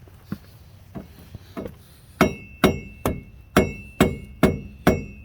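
Hammer blows on the 2007 Chevy Avalanche's steel wheel hub to knock the rust-seized hub loose from the axle: a few light taps, then from about two seconds in hard, ringing metal-on-metal strikes about two a second.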